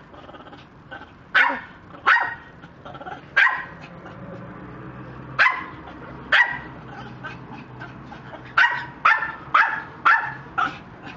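A dog barking repeatedly: about ten sharp barks at uneven intervals, some in quick pairs near the end.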